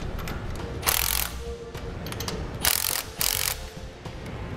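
Cordless impact wrench hammering in three short bursts, once about a second in and twice in quick succession near the end, as it runs down and snugs the U-bolt nuts on a trailer leaf spring's axle plate.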